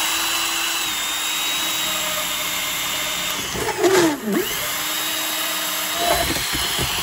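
Handheld rotary tool with a rotary file bit grinding a hole through the wall of a plastic storage box: a steady high motor whine over a grinding rasp. About four seconds in the whine drops away during a louder grinding moment, then climbs back up to full speed.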